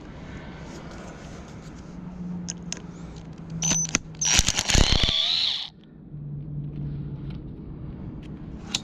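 A cordless drill whining for about two seconds midway, its pitch wavering under load as it works a screw on an electric scooter's handle. Before it come a few sharp clicks of metal parts being handled.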